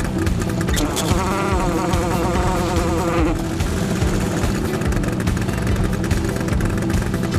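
Shibaura SF756AZ water-cooled portable fire pump's engine running with a fast buzzing beat. About a second in, a wavering higher note rises over it for a couple of seconds, then fades.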